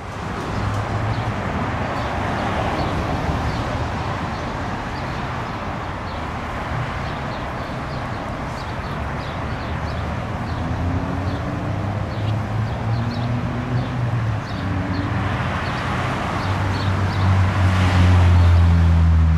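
Melbourne SW6-class W class electric tram running on the tramway. Its low hum steps up in pitch several times from about halfway through and is loudest near the end.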